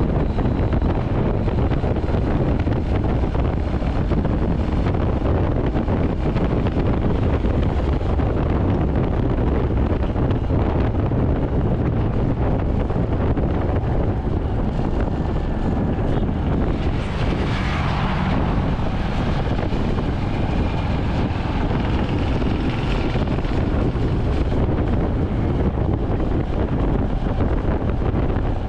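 Royal Enfield Hunter 350's single-cylinder engine and exhaust running steadily at highway cruising speed, under heavy wind noise on the microphone. A brief swell of higher-pitched noise comes and goes a little past halfway.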